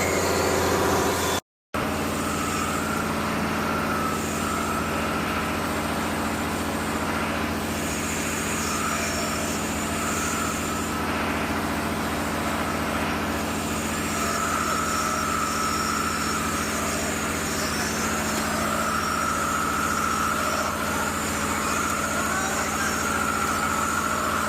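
Heavy truck diesel engine running steadily at a concrete pour, with a high whine that comes and goes. The sound cuts out for an instant about a second and a half in.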